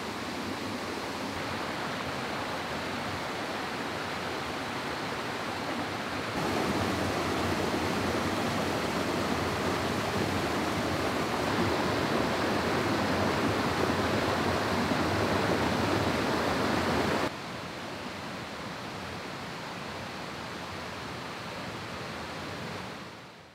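Rushing water of a mountain stream, a steady rush. It steps up louder about six seconds in, where a small cascade pours over rocks. It drops back to a softer flow about two-thirds of the way through and fades out at the very end.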